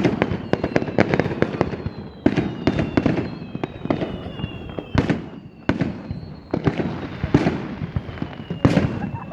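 Fireworks display: a rapid, continuous string of sharp shell bursts and crackling reports over a low rumble of booms, with a faint high whistle slowly falling in pitch underneath.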